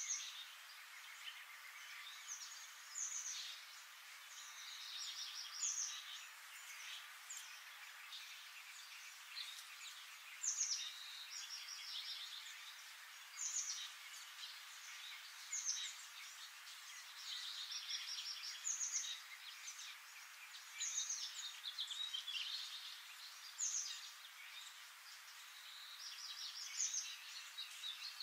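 Tropical forest ambience: wild birds chirping and trilling in short phrases every couple of seconds over a steady high hiss.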